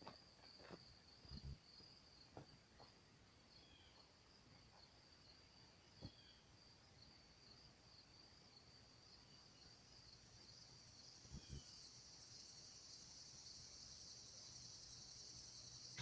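Near silence with a faint, steady insect trill and a few faint scattered knocks. A faint low hum grows in over the last few seconds.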